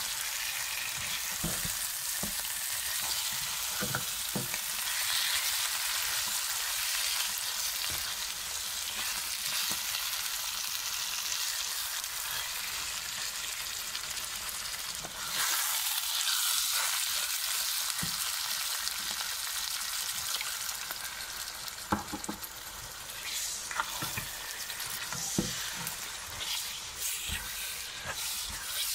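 Chicken pieces sizzling in hot oil and masala in a pan, being searing-fried while a spatula stirs them, knocking and scraping against the pan now and then. The sizzle swells for a few seconds about halfway.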